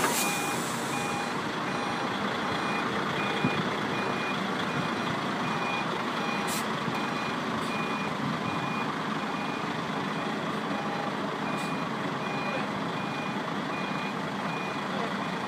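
Heavy truck's reversing alarm beeping in an even on-off rhythm over the steady running of its engine, with a few faint knocks.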